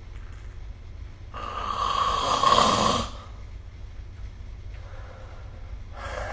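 A sleeping person snoring: one loud snore lasting nearly two seconds, about a second in, then a fainter breath near the end.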